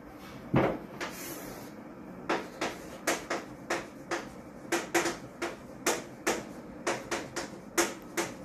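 Chalk tapping and scraping on a blackboard as words are written: an irregular run of sharp taps, about three a second, from about two seconds in. A single louder knock comes about half a second in.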